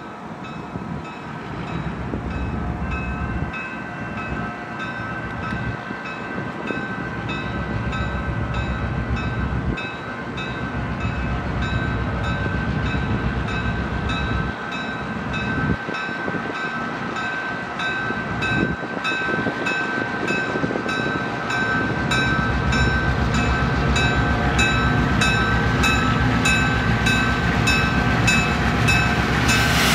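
A train running and drawing nearer, its rumble growing louder. Steady high ringing tones pulse in a fast, even rhythm over it.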